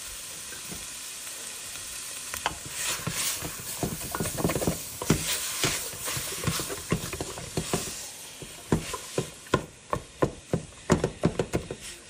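Ground beef and chopped onion sizzling as they brown in a stainless steel pot, stirred with a wooden spatula. From about two and a half seconds in the spatula scrapes through the meat, and in the last few seconds it makes a quick run of sharp knocks against the pot.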